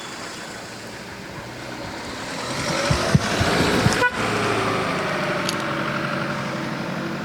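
A motor vehicle passing close by: its engine note builds and rises as it approaches, then falls away gradually as it moves off.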